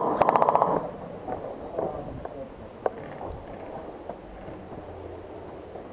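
Airsoft rifle firing a rapid full-auto burst of about fifteen to twenty shots a second over a steady whine; it stops under a second in. A few faint scattered pops and one sharper click follow.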